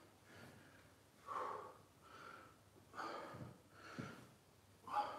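A man breathing hard from exertion, with short, faint breaths about once a second as he does repeated squat-to-stand repetitions.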